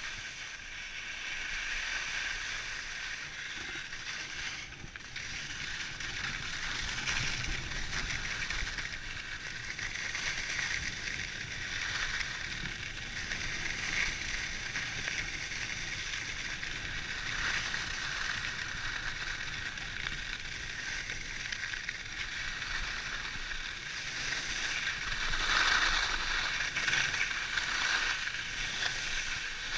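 Skis running over packed snow: a steady scraping hiss that swells and eases, loudest about 25 seconds in.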